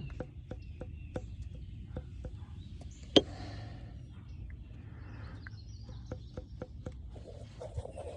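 Faint, scattered small clicks and taps, with one sharper click about three seconds in, over a low background rumble.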